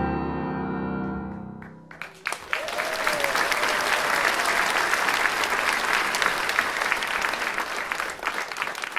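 Music ends on a held chord that fades away, then an audience breaks into sustained applause about two seconds in, thinning near the end.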